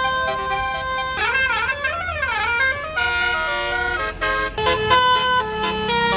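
Basuri telolet bus horn playing a tune in quick stepped notes, with a wavering warble from about one to three seconds in.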